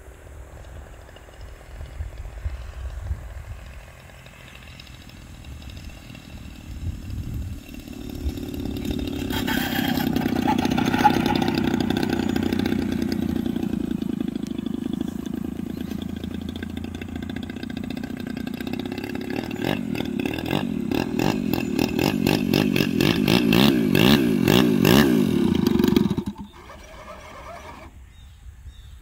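Gasoline engine of a large-scale RC aerobatic plane, a GP76 turning a 24x9 propeller, running at low throttle through landing and taxi. It is faint at first, grows louder about a third of the way in as the plane comes close, wavers in pitch, then cuts off abruptly near the end as the engine is shut down.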